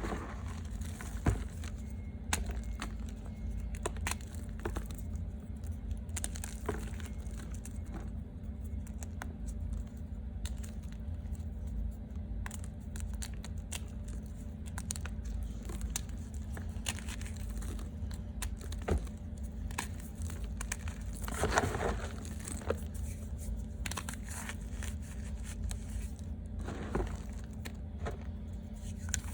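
Reformed gym chalk being crunched: irregular crisp crunches and crackles, with a denser run of crunching about 21 seconds in, over a steady low hum.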